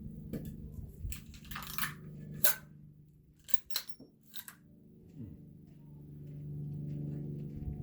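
Metallic clicks and clacks of a Desert Eagle .50 AE pistol being handled while its failure to extract a spent case is cleared, about seven in all, the loudest about two and a half seconds in. A steady low hum runs underneath and swells near the end.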